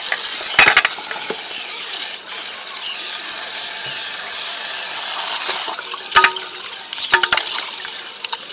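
Tap water pouring steadily onto peeled cassava roots in a steel bowl while they are rubbed clean by hand. A few sharp knocks sound as the roots bump the metal bowl, one near the start and two more around six and seven seconds in.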